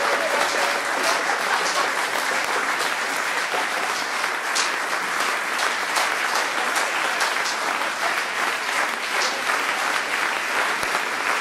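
Concert audience applauding steadily, a dense patter of many hands clapping in a small hall.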